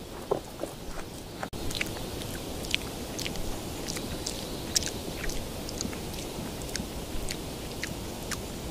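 Long-tailed macaque chewing food: irregular, crisp crunching clicks, several a second, over a steady low hiss.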